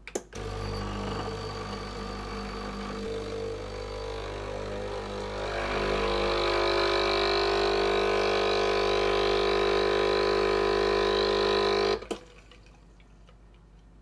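Coffee machine switching on with a click, its pump humming steadily as liquid runs, growing louder about halfway through, then cutting off abruptly with a click.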